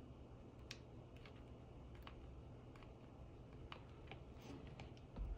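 Faint, scattered light clicks from a hot glue gun being worked against stacked wooden Jenga blocks while its new glue stick won't feed. A soft low thump near the end.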